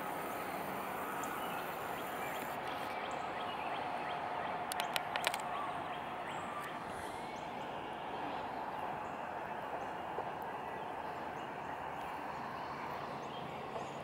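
A mixed freight train rolling away into the distance: a steady rumble of wheels on rail. A short cluster of sharp clicks comes about five seconds in.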